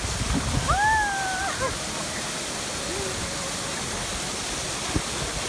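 Steady rush of a small waterfall, with a short high exclamation about a second in.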